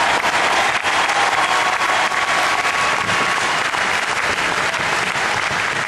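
Large audience applauding, dense and steady clapping throughout.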